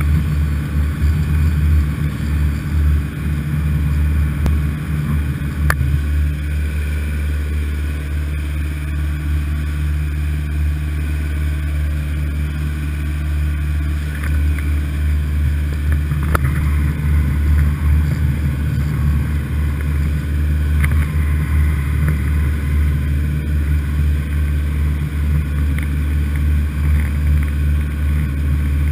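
A fishing boat's engine running steadily under way, heard from inside the wheelhouse as a constant low drone.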